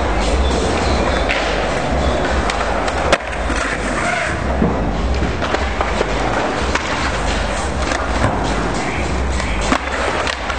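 Skateboard wheels rolling with a continuous rumble, with sharp clacks of the boards, the loudest about three seconds in and another near the end.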